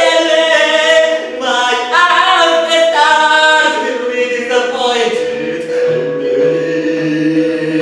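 A voice singing into a microphone over a sustained musical backing. The sung line stops about five seconds in, and the held backing tones carry on with a low pulsing note.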